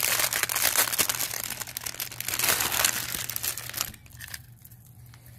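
Thin clear plastic bag crinkling and rustling as it is pulled open by hand and a necklace is drawn out; the crackling stops about four seconds in.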